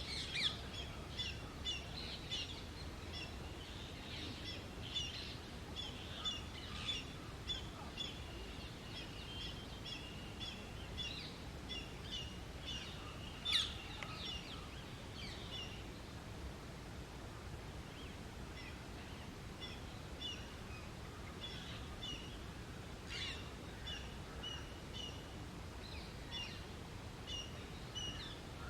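Indian grey hornbill calling: runs of short, high-pitched squeaky notes repeated over and over. A single louder, sharper call comes about halfway through, and the calling thins out for several seconds after it before picking up again.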